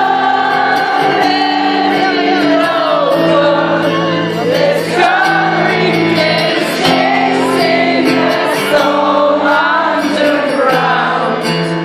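Acoustic cover of a song: a solo voice singing the chorus in long, gliding notes over sustained accompaniment chords.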